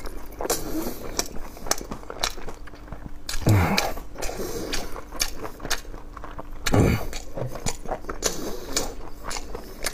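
A person eating stewed ribs with close, wet mouth noises: rapid smacking and clicking as they chew. Two louder, lower mouth sounds come about three and a half and seven seconds in.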